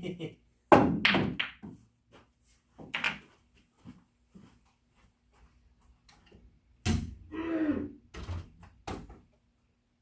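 Pool balls on a pool table: sharp knocks of the cue and balls striking one another, and thuds of balls dropping into a pocket, the loudest about a second in and again near seven seconds in. The shot ends in a scratch, the cue ball going into a pocket.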